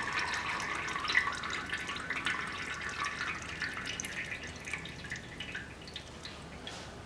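Automatic transmission fluid dripping and trickling from the transmission's valve body into a metal drain pan after the oil filter is pulled, with many small irregular drips. The flow thins and slows, growing fainter toward the end.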